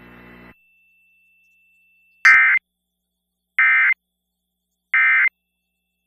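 EAS/SAME End Of Message digital code over a radio broadcast: three short, identical bursts of buzzing data tones about a second and a half apart, marking the end of the NOAA Weather Radio test alert. A faint low hum cuts off about half a second in, before the bursts.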